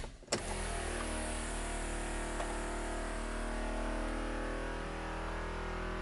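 A click as the key is turned on about a third of a second in, then the Think City's electric brake vacuum pump starts and runs with a steady, very loud motor hum. The car powers up to this point but does not start.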